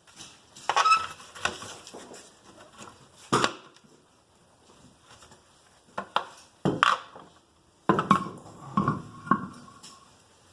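A run of separate metal clanks and knocks, with a short ringing after some of them, as car tools and wheel hardware are handled during the refit of a front wheel after a brake pad change.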